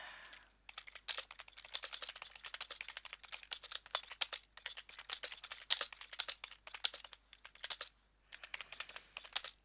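Typing on a computer keyboard: quick runs of key clicks, broken by two brief pauses, about four and a half and eight seconds in.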